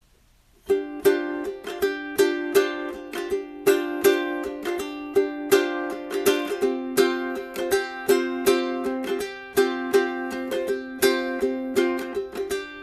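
Background music: a bright tune on a plucked string instrument like a ukulele, with quick picked notes. It starts just under a second in.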